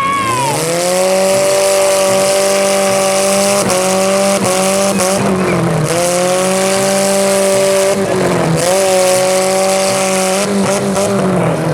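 Compact demolition-derby car engine revving hard and held at high rpm, its pitch dropping briefly three times and climbing back each time.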